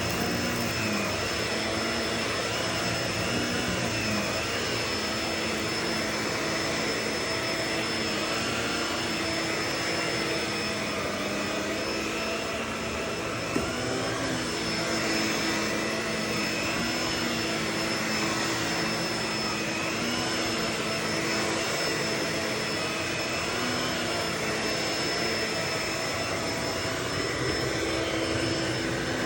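Vacuum cleaner running steadily, with a constant high motor whine over a broad rush of air; some of its tones waver slowly up and down. A single short click about 13 seconds in.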